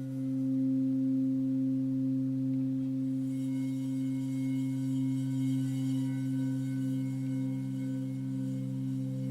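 Singing bowls ringing in long, sustained, overlapping tones, their loudness swelling and wavering slowly, with a faint higher shimmer joining about three seconds in.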